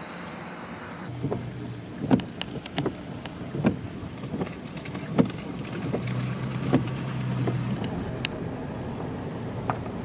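Cabin noise of a moving car: steady road and engine noise with a low engine drone, broken by several sharp knocks and thumps.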